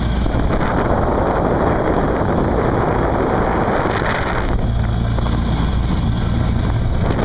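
Golf cart driving over a grass track, its motor running steadily under a strong rush of wind on the microphone.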